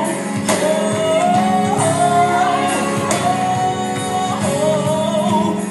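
Gospel music with a singer holding long notes that step up and down over a sustained accompaniment.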